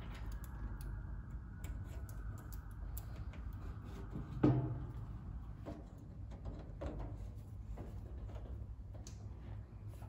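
Small clicks and taps of a screwdriver and wire at a screw terminal block in a fire alarm terminal box as a data cable is fastened back in, over a steady low hum. One louder knock about four and a half seconds in.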